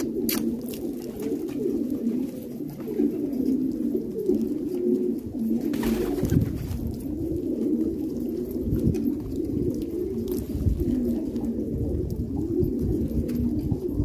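A flock of fancy pigeons cooing continuously, many birds' coos overlapping. A short noise comes about six seconds in.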